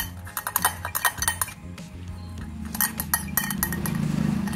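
A metal spoon stirring thick, glue-based slime in a glass bowl, clinking and scraping against the glass in quick, irregular taps that thin out about three seconds in. The activator is being stirred in to stiffen the slime and make it come away from the bowl.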